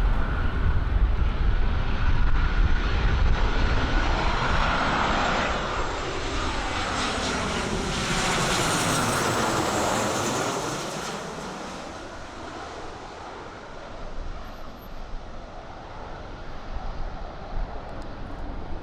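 An aircraft passing close by: its engine sound swells to its loudest about halfway through, with a sweeping, phasing quality as it goes over, then fades away. Wind rumbles on the microphone throughout.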